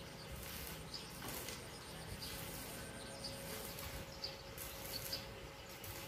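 Faint outdoor background with short, high chirps of a small bird now and then, over a faint steady hum.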